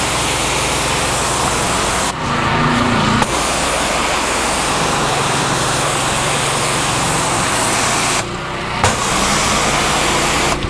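Simpson AL4240 gas pressure washer's wand spraying a steady high-pressure jet of water onto concrete, a loud hiss over the engine running underneath. The spray cuts out briefly twice, about 2 seconds in and about 8 seconds in, as the trigger is let go.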